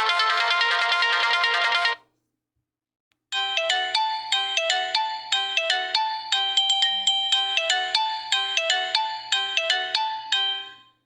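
Nokia 8000 4G default ringtones playing. One dense electronic melody stops about two seconds in. After a short gap, a second ringtone of quick, short notes in a repeating phrase plays for about seven and a half seconds and stops just before the end.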